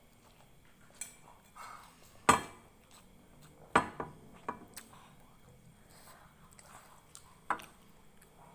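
Metal cutlery clinking against a plate in a few separate sharp knocks, the loudest about two seconds in, two close together about four seconds in, and one more near the end.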